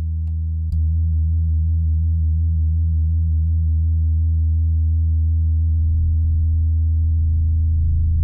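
Moog Werkstatt-01 analog mono synth holding a low, buzzy drone. Just under a second in, it steps louder and picks up a fast, even pulsing in its overtones, about five a second. From about six seconds in it turns rougher and wavering.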